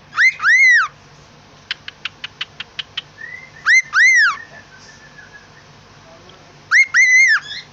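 Pet bird whistling three times, each call a pair of loud arched notes that rise and fall. A quick run of about seven clicks comes between the first and second calls.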